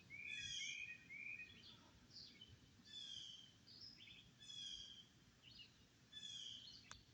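Faint songbird calls: three short slurred whistles, then brief chirps with high trills repeating about every second.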